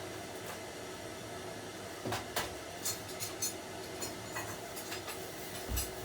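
Scattered clicks and light knocks of small objects being handled and moved about, over a steady low background hum, with a dull thump near the end.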